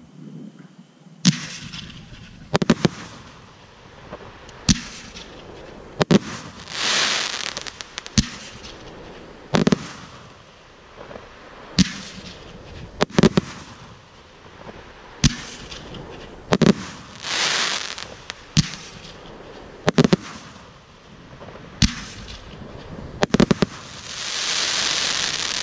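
A 49-shot consumer fireworks cake (Platinum Series SFC49-F102) firing its shots one after another, a sharp report about every one and a half to two seconds. Several shots are followed by a crackling spray from the white crackling stars, the longest near the end.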